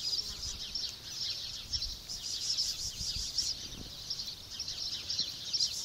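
Small birds chirping continuously, many quick high chirps overlapping one another.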